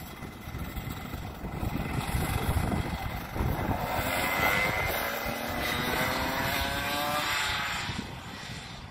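A 125cc two-stroke go-kart engine buzzing as the kart accelerates, its note rising steadily in pitch for several seconds from about four seconds in, then fading near the end.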